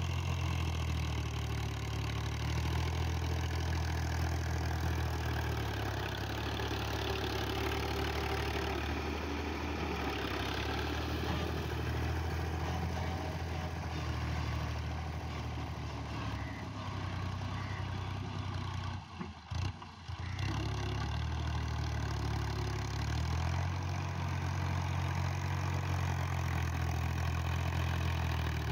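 Diesel tractor engine running steadily close by, its speed shifting slightly a few times. The sound briefly dips and cuts out twice about two-thirds of the way in.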